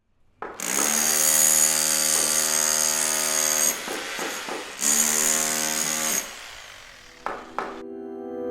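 A power tool running twice with a steady whine, first for about three seconds and then for about a second, followed by two sharp knocks near the end.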